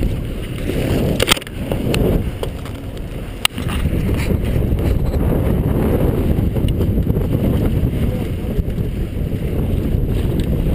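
Wind buffeting the microphone in a 13-knot breeze, a steady low rumble, on a sailboat under way. Two sharp knocks in the first few seconds, about two seconds apart, as the camera is handled.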